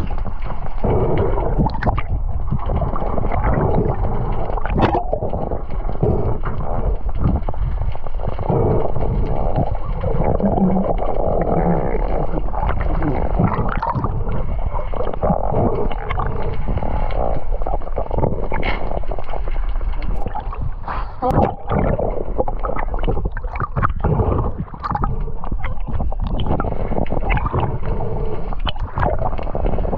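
Muffled underwater sound through a diving camera's housing: water gurgling and swirling around the camera, with scattered clicks and knocks.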